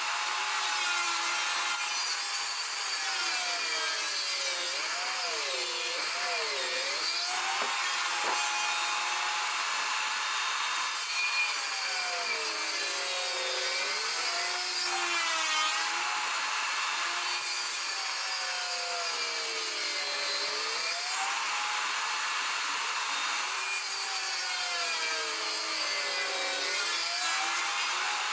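Bosch table saw running and cutting wood for tenons. Its pitch sags each time the blade bites into the wood and climbs back as the cut finishes, several passes in a row, over a steady hiss of sawing.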